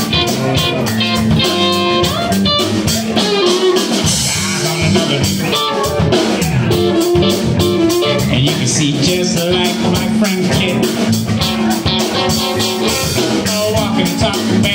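Live band playing: electric guitar lines over electric bass and a drum kit, with a steady beat.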